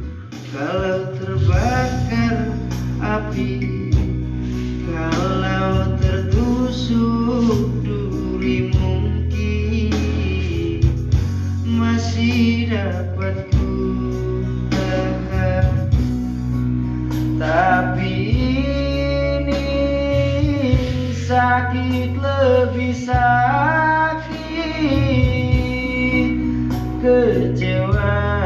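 Dangdut karaoke music: a backing track with a steady bass beat and a gliding melody line, with a man singing into a microphone over it.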